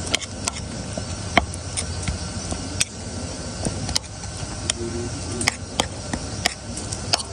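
A metal spoon clinks and scrapes irregularly against a stainless steel bowl as it mashes soft butter into chopped garlic and herbs. A steady low background noise runs underneath.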